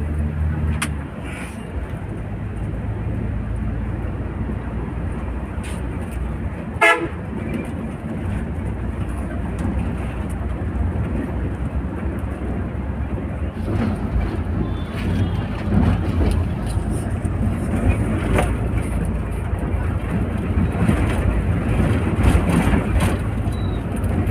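Volvo coach running on the road, heard from the front of its cabin: a steady engine and tyre rumble that grows louder about halfway through, with one short horn toot about seven seconds in.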